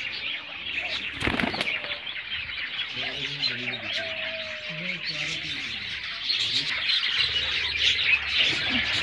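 A pigeon's wings flapping in one short burst about a second in, over steady chirping of small birds; a few low pigeon calls come around the middle.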